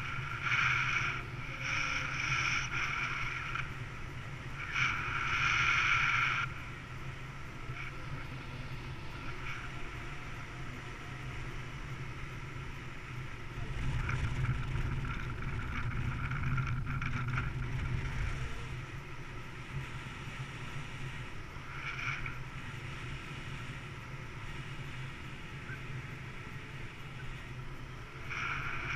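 Wind rushing over the microphone in paraglider flight, with a low rumble that swells about halfway through. Short bursts of a high tone come and go, several in the first few seconds and twice more later.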